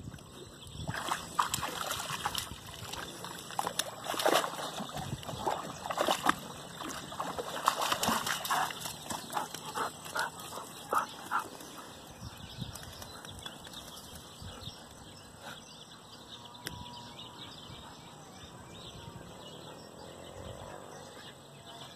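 A dog splashing and wading in shallow muddy water and scrambling out onto the bank, a run of sudden sloshes through the first half; quieter after about twelve seconds.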